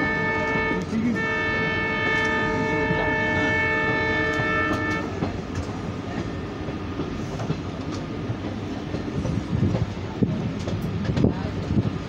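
Train horn sounding one long chord, broken briefly about a second in and stopping about five seconds in, followed by the rumble and irregular clatter of the moving train.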